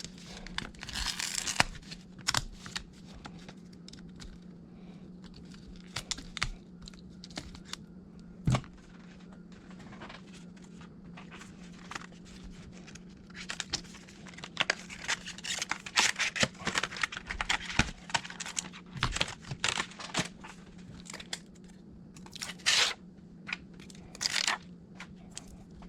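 Adhesive tape or film being peeled and handled during a tablet repair: irregular crinkling, tearing rustles and small clicks, busiest about halfway through, over a steady low hum.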